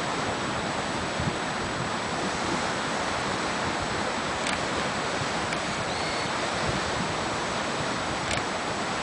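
Steady, even rushing noise with no rhythm to it, with a few faint clicks.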